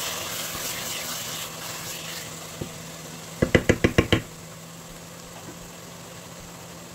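Wooden spoon stirring a simmering pot of sorrel stew, then about seven quick sharp knocks in under a second, the spoon tapped against the pot's rim. A steady low hum runs underneath.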